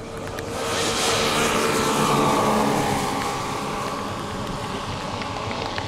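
Four gas engines and propellers of a large scale-model Lockheed Super Constellation droning in a low flypast. The sound swells to its loudest about two seconds in, then the pitch drops as the plane goes by.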